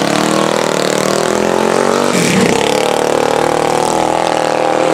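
Open-class racing lawn mower engines at full throttle, loud, as two mowers launch off the start line and race away. The engine pitch dips briefly about two seconds in, then climbs steadily again.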